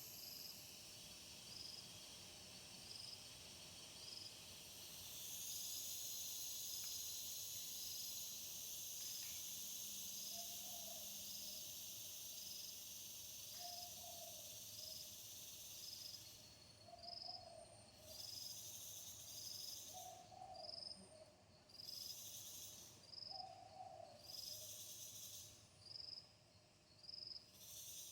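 Faint night chorus of insects: a steady high buzz with a regular chirp about once a second. From about ten seconds in, a short low hoot repeats every three seconds or so. In the second half the high buzzing pulses on and off.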